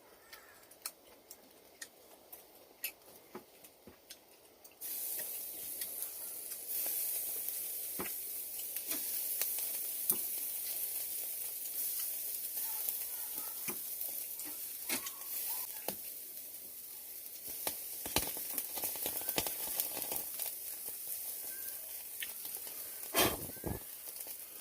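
Food frying in a pan: a sizzling hiss that starts suddenly about five seconds in and carries on steadily, with scattered clicks and knocks of cookware.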